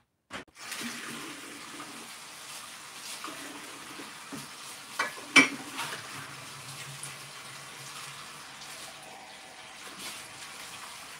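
Kitchen tap running steadily into the sink while dishes are washed by hand, with a sharp clatter of dishes about five seconds in.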